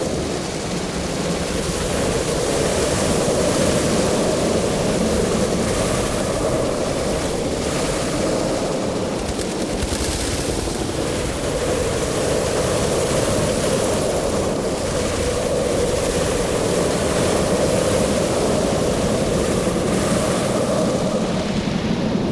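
Designed sound effect of an intense swarm of demons flying: a loud, dense, continuous rushing noise with a churning mid-pitched drone that slowly swells and eases.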